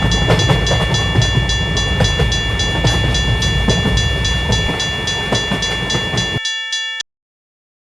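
Railroad crossing warning bell dinging in a steady repeating rhythm while a train passes with a heavy low rumble and wheel clatter. The train noise ends about six and a half seconds in, the bell stops half a second later, and then there is silence.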